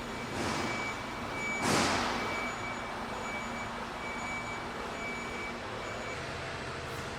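Truck's reversing alarm beeping steadily about twice a second, stopping about six seconds in, with two short hisses of compressed air from the air brakes, the second louder, under two seconds in.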